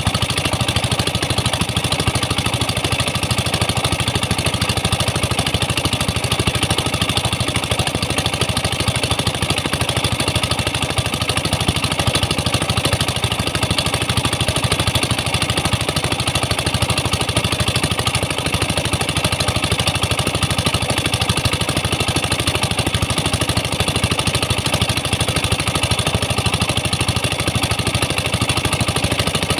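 Pump engines of a tin-mining rig running steadily at constant speed, with high-pressure water jets hissing from the hoses as they blast the sandy pit walls.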